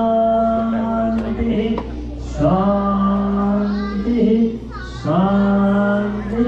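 A group of voices chanting in unison in long held notes, each phrase lasting about two seconds and opening with a short upward slide, with brief breaths between phrases.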